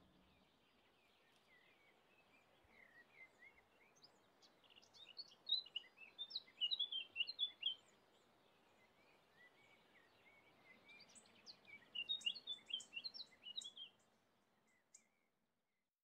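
Faint chorus of small birds chirping and twittering in rapid, quick-sweeping calls, in two busy stretches a few seconds apart, over a low outdoor background hiss.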